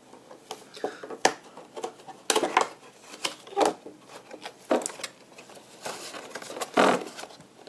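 Cardboard-and-clear-plastic toy car box being opened and handled: irregular scrapes, taps and crinkles of the packaging as the cardboard tray is slid out, with a few louder knocks.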